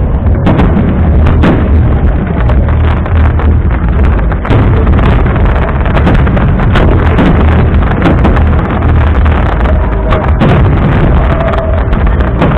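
Fireworks shells bursting in quick succession: a dense run of booms and sharp cracks over a continuous low rumble.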